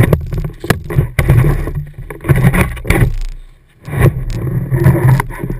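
Ski running over snow, heard through a GoPro fixed to the ski tip: uneven scraping and rumbling bursts as the ski carves and snow sprays over the camera housing, with a short lull about three and a half seconds in.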